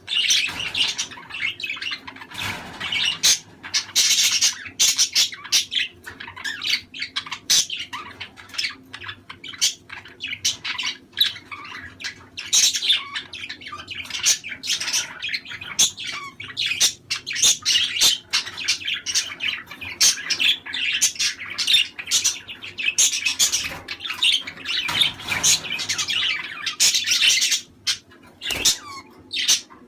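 A flock of budgerigars chattering, a dense, unbroken run of quick chirps and squawks.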